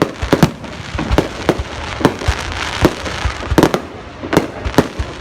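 Fireworks going off: about a dozen sharp bangs at uneven intervals over a constant crackle.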